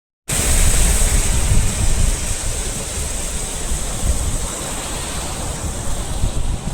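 Heavy ocean surf from big typhoon swell, a dense, steady rush with a deep low rumble, with wind buffeting the microphone.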